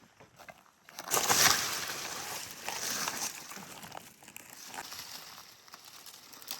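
A loud burst of rustling, crunching noise starting about a second in, strongest for the next couple of seconds, then easing to softer rustling with scattered clicks.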